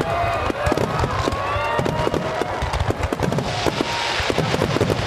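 A dense fireworks barrage: rapid bangs and crackles, with several whistling shells rising in pitch in the first couple of seconds and a burst of hissing crackle about four seconds in.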